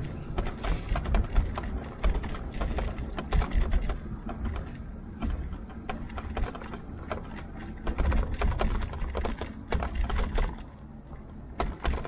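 Irregular clicking and rattling from an e-bike and its handlebar-mounted camera as it rides over an uneven path surface, over a steady low rumble.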